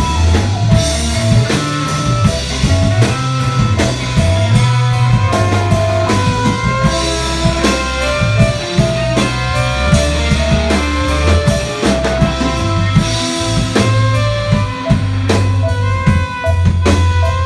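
Rock band playing live: drum kit keeping a steady beat under guitar and low bass notes.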